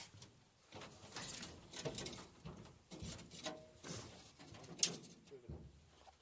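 Scattered clicks and taps of pliers and a hook as a caught tigerfish is unhooked on the aluminium deck of a boat, with one sharp click a little before the end.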